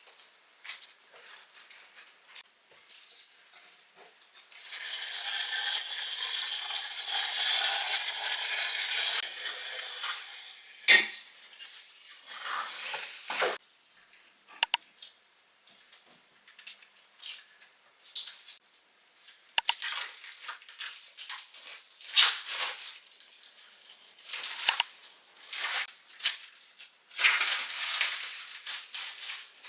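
Kitchen work sounds: dishes and utensils knocking and clinking, in short clatters and sharp clicks. For about six seconds, starting about five seconds in, a steady rushing hiss runs underneath.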